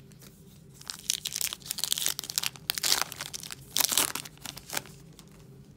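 Foil wrapper of a trading-card pack being torn open and crinkled by hand: a run of crackling and tearing that starts about a second in and stops near the end, loudest in two sharp rips late in the run.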